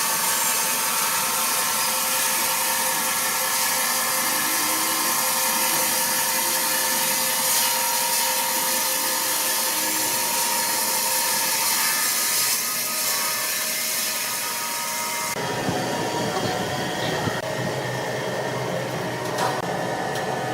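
Sawmill machinery running with a steady whirring noise and a few steady tones. About 15 seconds in, the sound changes abruptly to a lower, rougher machine noise.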